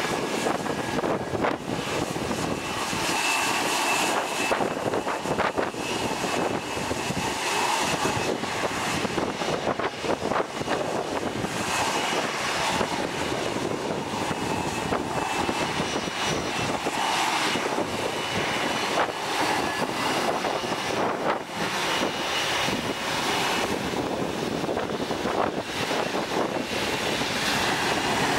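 McDonnell Douglas MD-80-series airliner taxiing, its two tail-mounted JT8D turbofans running steadily at low taxi power with a faint high whine over the engine noise.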